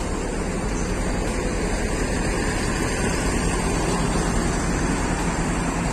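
A bus's diesel engine running steadily, a low even hum under a wash of engine and terminal noise.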